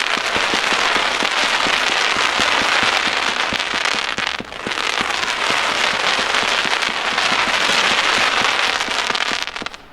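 Mad Ox Stampede 500-gram firework cake firing rapid volleys, many quick shots over a dense hiss. It falls back briefly about four seconds in, picks up again, and dies away just before the end.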